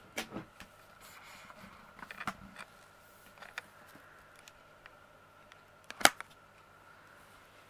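Faint handling noise from a hand-held camera being moved round, with a few light clicks and knocks, the sharpest about six seconds in, over a faint steady high tone in a quiet room.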